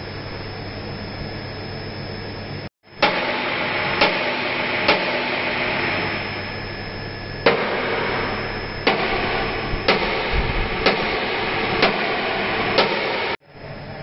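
Workshop noise: a steady hum, then a louder, hissy stretch with sharp knocks about once a second, eight or so in all.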